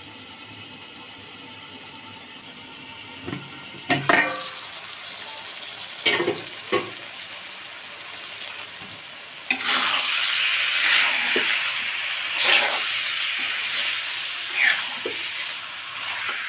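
A few light clinks of metal cookware. Then, about nine and a half seconds in, loud sizzling starts as spiced beef skin pieces fry in a karahi, with spatula scrapes as they are stirred.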